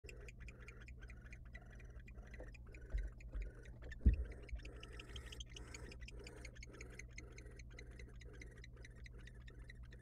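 Steady, even clicking at about three clicks a second over a low hum, with two heavy thumps a little after three seconds in and at about four seconds in, the second the loudest.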